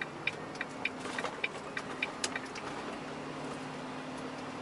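Truck's turn-signal indicator ticking about three times a second over the steady hum of the cab, stopping about two seconds in.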